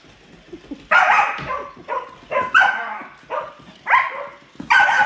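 Puppy barking repeatedly at a toy in play: a string of short barks starting about a second in.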